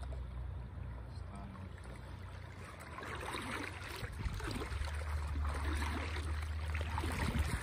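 Water splashing as a hooked trout thrashes at the surface and is brought into a landing net, becoming louder and rougher about three seconds in, over a low steady rumble.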